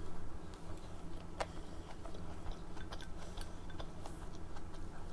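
Close-miked chewing of a dumpling: scattered soft wet mouth clicks and smacks, over a steady low hum.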